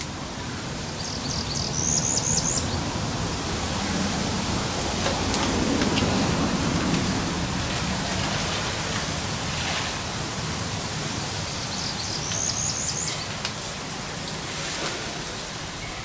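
Steady hissing outdoor noise, a little louder in the first half, with a songbird twice singing a short phrase of quick rising high notes, about a second in and again near the end.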